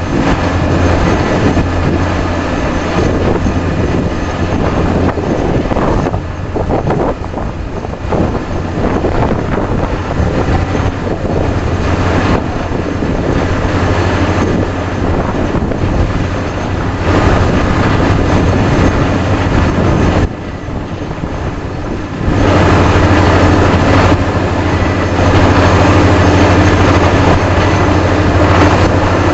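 Diesel-driven Vesta VA650X2 portable screw compressor and truck-mounted drill rig running under load while drilling with 400 psi air: a loud, steady, dense machine noise over a constant low hum. The noise drops briefly about 20 seconds in, then comes back louder.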